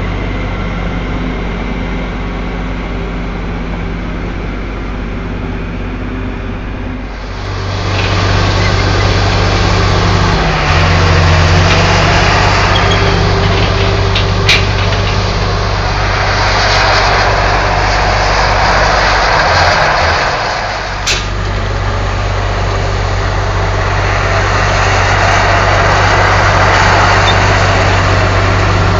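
Komatsu crawler bulldozer's diesel engine running steadily. About seven seconds in it gets louder and rougher, with a noisy rattle over the engine note as the blade pushes soil. Two sharp clicks come in the middle.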